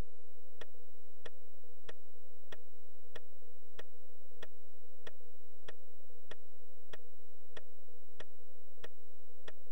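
Ticking on the Amiga demo's soundtrack: sharp, evenly spaced ticks, about three every two seconds, over a steady low hum.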